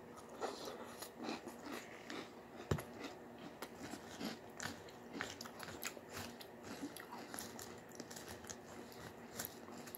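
Chewing a mouthful of crunchy Cap'n Crunch cereal in milk: a string of faint crunches and soft clicks, with one sharper click a little before three seconds in.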